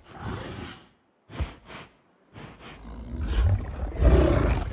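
Movie creature sound of a giant wolf growling. After a few brief noisy bursts separated by silent gaps, a deep growl builds and is loudest near the end.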